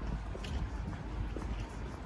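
Wind buffeting the microphone, a steady low rumble, with a few faint scattered clicks over it.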